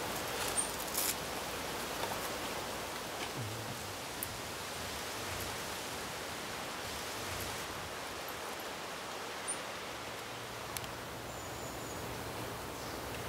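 Steady outdoor garden ambience, an even hiss with light rustling. In the first second water briefly splashes and trickles from a wet cloth into a metal bucket.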